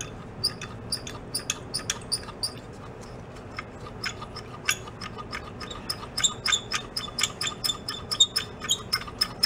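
Compressed air blown back through the passages of a VW carburetor, bubbling through the fuel left inside as a string of small, irregular squeaky pops, a few a second and coming faster about halfway through. It is a check of the accelerator pump circuit, which he finds dead.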